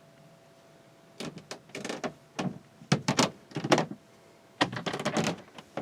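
A series of irregular knocks and clunks from hands mounting a smoke detector, with a faint steady tone beneath the first few seconds.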